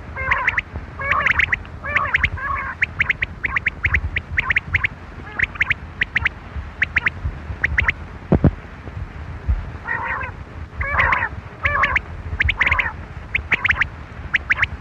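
Quail calling: quick clusters of short, sharp chirping notes, repeated again and again over a steady low rumble. One low thump a little past halfway.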